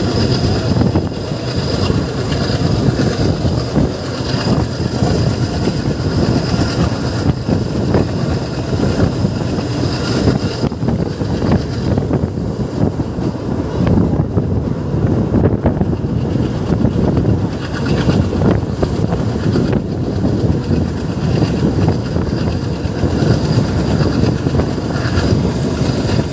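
Indian Railways passenger train running at speed, heard from beside its own coach: a steady rumble of wheels on the rails with a continual clatter of the running gear.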